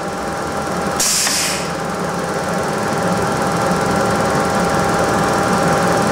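Cincinnati Model 2OM centerless grinder running a steady automatic infeed cycle, with a short hiss of compressed air about a second in as the air cylinders retract the infeed, eject the ground part and feed in a new piece.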